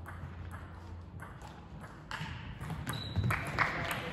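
Table tennis balls clicking at an irregular pace, bouncing off tables and bats, in a large sports hall.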